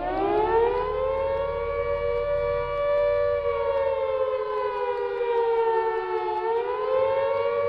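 Air-raid siren wailing with two close tones: it winds up to pitch about a second in, holds, sags slowly, then rises again near the end.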